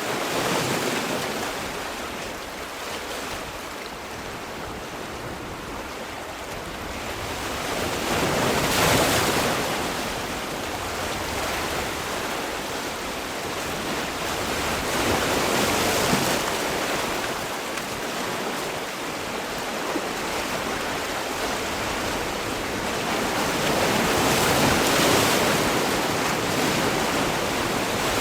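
Sea waves breaking and washing on the shore, in slow swells that peak roughly every seven to nine seconds, about four times.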